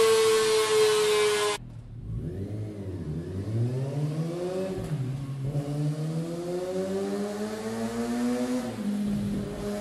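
Kawasaki ZX-6R 636's inline-four engine held at high revs through the stock exhaust, its pitch easing down, cut off sharply about a second and a half in. The same engine is then heard through a MIVV GP Pro aftermarket exhaust, quieter: a few throttle blips, then revs climbing steadily and dropping back a little near the end.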